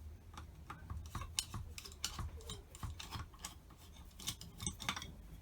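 Irregular light metallic clicks and taps from small carburettor parts being handled and worked on a Dellorto DRLA 40 carburettor during disassembly.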